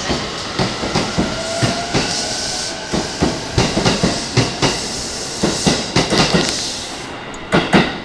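E233 series electric train cars pulling out of the station, their wheels clacking over rail joints in quick pairs of strikes as each bogie passes, over a steady rolling rumble and a faint motor whine that rises briefly about a second in. The last bogies pass with a loud pair of clacks near the end and the sound falls away.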